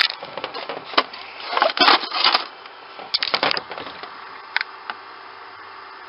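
Handling noise as a packaged Lunchable is put into a small plastic 12 V cooler: a series of knocks, clicks and rustles of packaging and plastic over the first three and a half seconds. A couple of short clicks follow, then a steady hiss.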